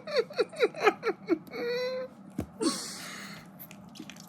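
A person laughing hard in a quick run of falling 'ha's, about four a second. The laughter ends in a short held note and a breathy exhale.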